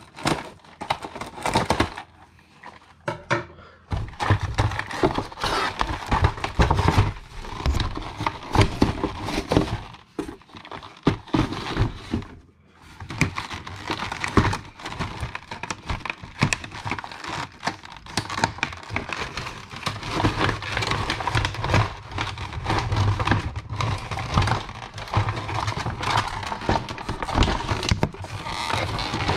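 Packaging being handled and unwrapped: continuous crinkling and crackling of wrapping, with scattered knocks and clicks.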